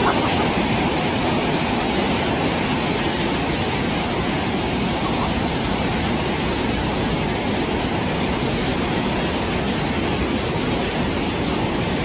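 Storm wind and heavy rain beating against a giant hangar-style factory door, heard from inside as a steady, loud rush of noise.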